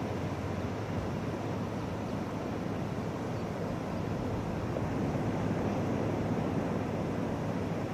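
Steady rush of ocean surf mixed with wind noise on the microphone, a little louder from about five seconds in.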